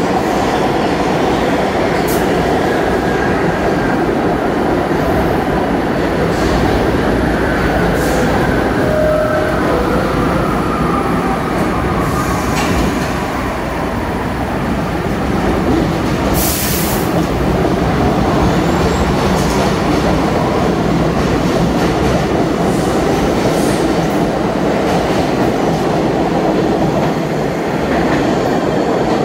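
R62A subway train pulling out of the station along the platform, loud and steady with wheel and track noise, a falling tone early on and short high hisses and squeals, the strongest about halfway. Near the end a second R62A train is approaching.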